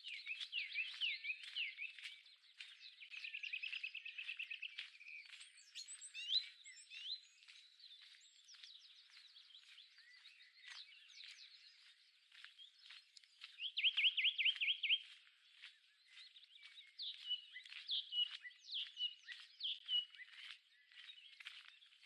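Woodland songbirds singing: a mix of chirps, sweeping whistled notes and trills from several birds, the loudest a fast trill about 14 seconds in, over faint scattered ticks.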